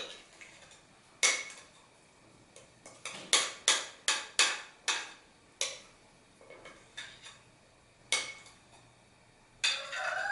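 A spoon knocking and scraping against a mixing bowl and a metal saucepan as the last of the cake batter is scraped out. It gives a string of sharp knocks, some with a short metallic ring, including a quick run of about five in the middle.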